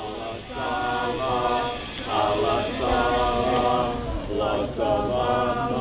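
A group of people chanting together, several voices holding drawn-out sung syllables in three phrases with short breaks between them.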